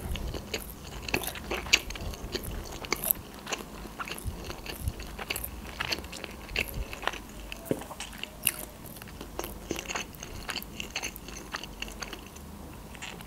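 A person chewing a mouthful of sushi roll with the mouth closed: a string of small, irregular wet clicks and smacks from the mouth.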